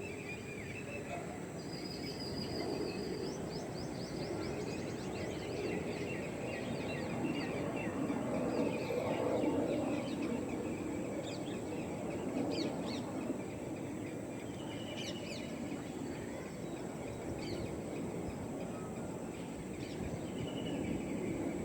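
Birds calling over a steady background noise: a fast run of short, high chirps a couple of seconds in, then scattered single calls.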